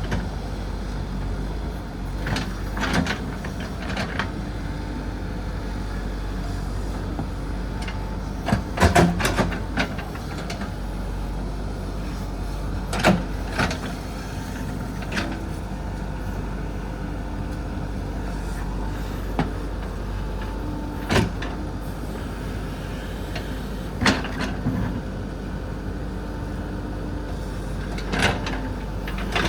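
JCB 3DX backhoe loader's diesel engine running steadily while it digs, with intermittent sharp clanks and knocks of the bucket striking rock and earth, a loud cluster of them about nine seconds in.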